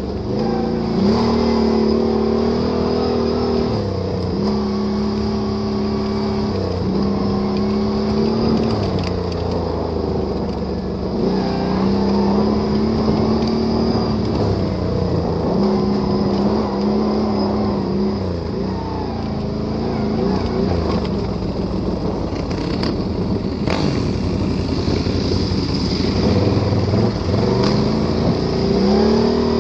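ATV engine running under load off-road, the throttle worked on and off so the engine note climbs, holds for a second or two, then drops back, over and over.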